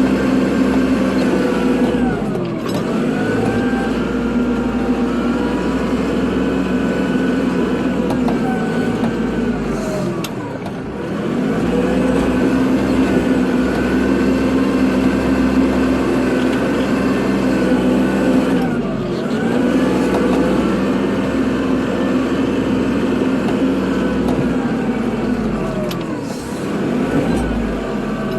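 Kubota tractor's diesel engine running steadily under work, its pitch dipping briefly and then climbing back four times, about every eight seconds.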